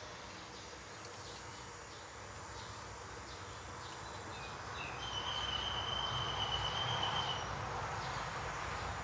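Steady background noise that grows louder about halfway through, with a thin, high, steady tone held for about two seconds.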